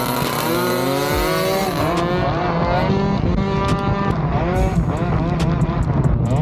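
Small 70cc motorcycle engine with a snake-style ('culebra') muffler, revved over and over in short bursts. Its pitch swings up and down about once or twice a second.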